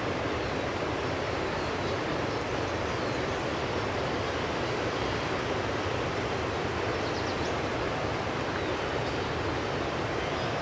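Fast-flowing river water rushing steadily over rapids. A few faint high chirps come through about seven seconds in.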